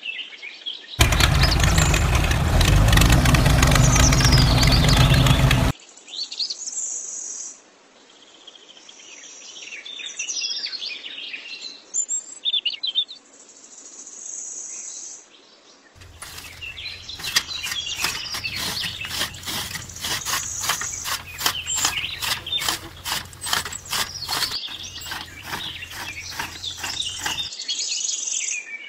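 Birds chirping throughout. About a second in, a loud steady noise runs for about five seconds. Later a homemade miniature chaff cutter chops grass blades in a quick, even run of sharp cutting clicks, several a second, that stops shortly before the end.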